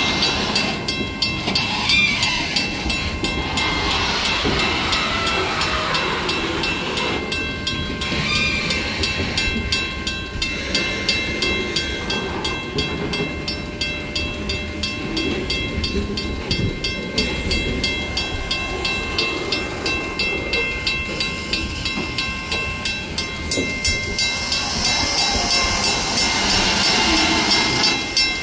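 Loaded grain hopper wagons of a freight train rolling past a level crossing: a steady rumble with regular clacking of wheels over the rail joints and brief high wheel squeals. Steady ringing tones from the level-crossing bell sit over it.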